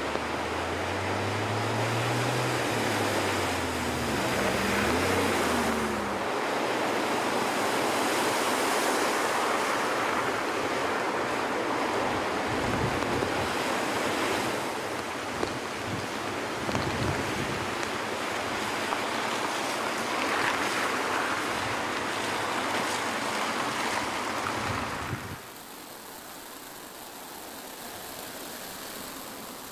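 Rushing, splashing floodwater as vehicles drive through a flooded road in a storm, with wind on the microphone; a vehicle engine rises and falls in pitch in the first few seconds. About 25 seconds in it drops suddenly to a quieter, steady wet-road and wind noise.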